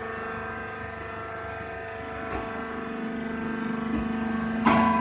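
Round baler running steadily with a droning hum, with a short knock a little after two seconds and a louder clank near the end.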